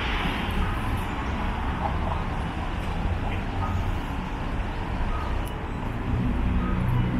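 City road traffic: a steady rumble of passing vehicles, with a heavier vehicle's engine drone growing louder near the end.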